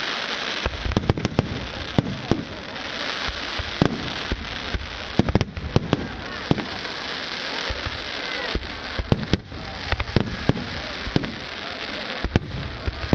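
Fireworks display: a rapid, irregular string of shell bursts going bang after bang, over a continuous crackle and hiss of burning stars.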